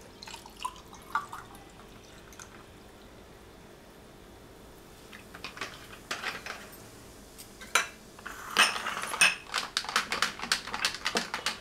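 Soda water poured into a glass over ice, with a few light clinks. About two-thirds of the way in, a spoon starts stirring, clinking rapidly against the glass.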